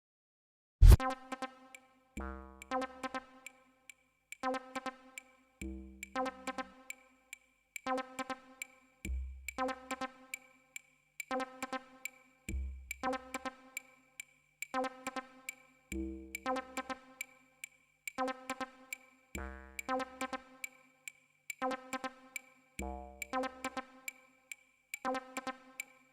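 Electronic dub music starting after a brief silence with one loud hit about a second in, then a repeating pattern of deep bass notes roughly every three and a half seconds under synthesizer chord stabs and a steady run of fine ticks.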